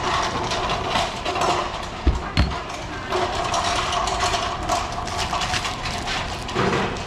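A cleaver knocks twice on a pineapple and wooden cutting board about two seconds in. Thin plastic bags then crinkle as the cut fruit is bagged. A steady mechanical hum runs underneath.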